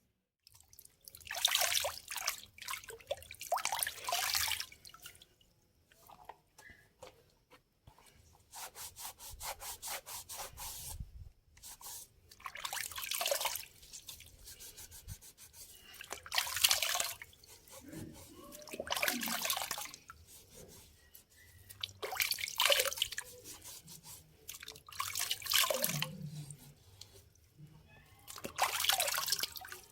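Repeated rubbing or scrubbing strokes, each lasting about a second, with water splashing and dripping, as in washing something by hand.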